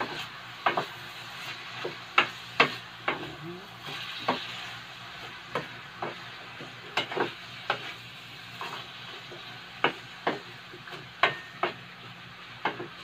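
Wooden spatula stirring seafood and vegetables frying in a stainless steel pot: a steady sizzle with irregular sharp knocks of the spatula against the pot.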